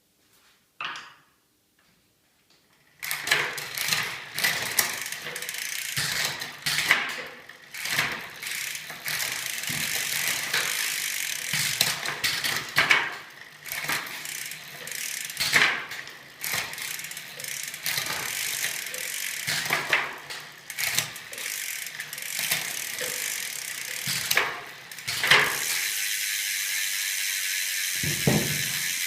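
Campagnolo Super Record 11-speed bicycle drivetrain running, chain and gears whirring steadily, with sharp clicks every one to two seconds. About 25 seconds in the clicks stop and a steady even whir carries on.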